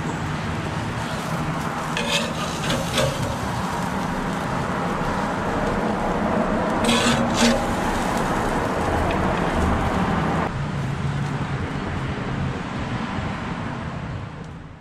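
Metal spatula scraping across a gas grill's grates as grilled snakehead fillets are lifted off, a short scrape about two seconds in and a sharper pair around seven seconds in, over a steady low rushing noise that fades out at the end.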